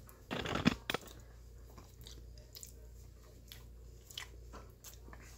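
A man eating a spoonful of homemade hemp ice cream: a brief louder mouth sound under a second in, then faint small chewing and mouth clicks.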